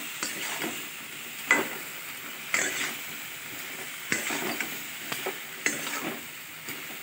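A spatula scraping and clacking against a steel kadai about once a second as potatoes and soya chunks are stirred and fried with ground spices (the koshano stage), over a steady sizzle from the pan.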